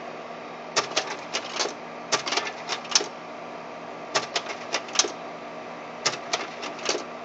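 Kodak Carousel 4200 slide projector's slide-change mechanism clicking and clattering in four quick bursts about two seconds apart, as it is cycled from the remote. A steady low hum from the projector's cooling fan runs underneath.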